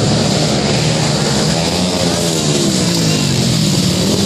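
Supermoto motorcycle engine running close by, its pitch falling about two to three seconds in, over background music.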